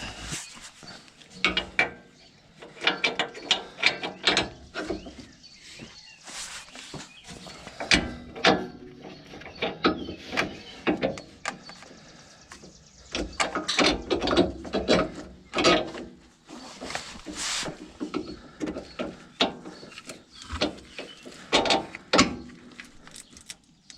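Irregular metal clinks, clicks and knocks as a new sway bar end link is worked into place in a pickup's front suspension and handled with hand tools.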